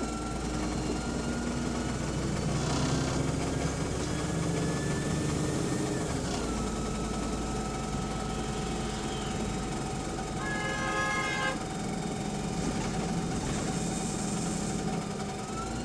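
Double-decker bus running, heard from inside, with the whine of its Voith automatic gearbox rising in pitch, falling back and then holding steady, over the engine drone; it is a noise the rider can't account for. About two-thirds through a short electronic tone sounds for about a second, and near the end a brief high hiss.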